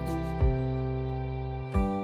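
Gentle instrumental background music: held chords with a soft low beat.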